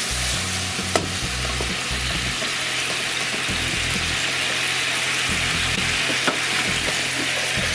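Sliced pork belly in a miso and soy tare sizzling in a frying pan on high heat as the sauce cooks down onto the meat, stirred with chopsticks. Two light clicks come about a second in and again later.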